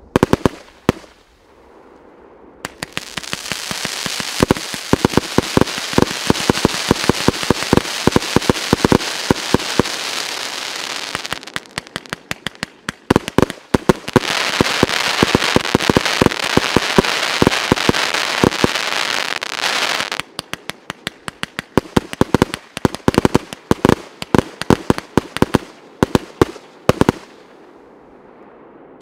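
A 300-shot 1.2-inch Piroff fireworks battery firing in quick succession, each shot a sharp bang. Twice, for several seconds, the shots are buried under dense crackling from crackling-star effects. Near the end come separate shots again.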